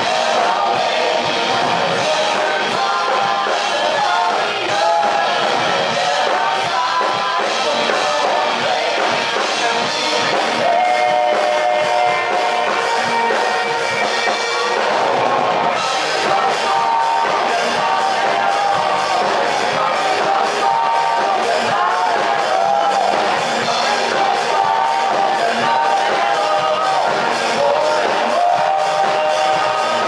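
Live rock band playing: a male lead vocal sung into a microphone over electric guitar, bass and drum kit, heard through the PA in a hall. About halfway through, the band gets fuller and brighter, with a steady, crisp beat.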